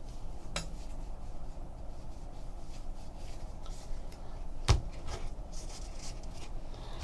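Trading cards and packs being handled on a table: faint rustling and a few light taps, with one sharper knock a little past halfway.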